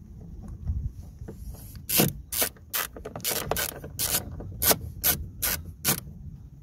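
Small socket ratchet clicking as it is swung back and forth to drive a door-casing screw home. There are about ten sharp clicks, two or three a second, starting about two seconds in, after some softer rubbing of the tool.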